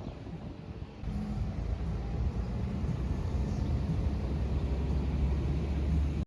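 Low rumble of a motor vehicle on the street, which grows louder about a second in and cuts off abruptly at the end.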